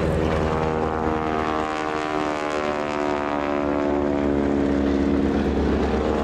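Boeing Stearman biplane's 450 hp radial engine droning steadily in flight, its pitch sinking slightly over the first few seconds.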